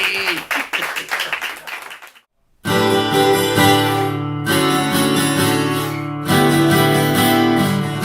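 The last sung note of a shanty dies away, a moment of silence follows, and about two and a half seconds in an acoustic guitar starts strumming chords that carry on steadily.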